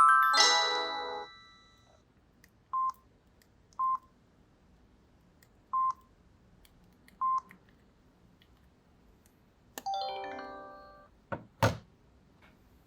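Samsung V200 mobile phone: the last notes of a polyphonic ringtone fade out, then four short single-pitch key beeps come at uneven intervals. Near the end there is a brief falling chime of a few notes and then two clicks.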